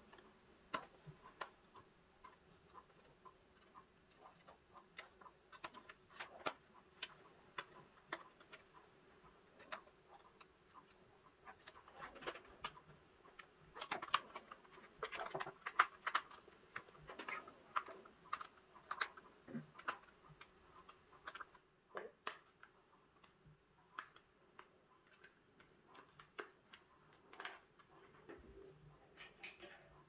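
Irregular small clicks, taps and rubbing as a metal lamp base and its flat plastic power cable are handled and the cable is worked around the base, busiest in the middle. A faint steady hum runs underneath.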